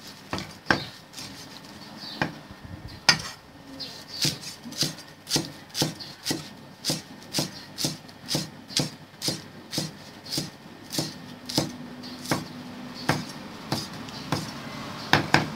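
Cleaver chopping coriander and other fresh herbs on a thick round wooden chopping block: a few scattered strokes at first, then a steady rhythm of about two chops a second.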